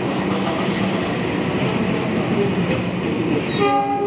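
Long-distance passenger train (KA Gajayana) arriving on the adjacent track, a steady loud rumble and rattle of its wheels and coaches. A short pitched sound comes in near the end.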